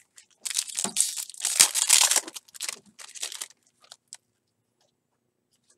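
Foil wrapper of a 2018 Donruss baseball card pack being torn open and crinkled for about three seconds, followed by a few faint ticks.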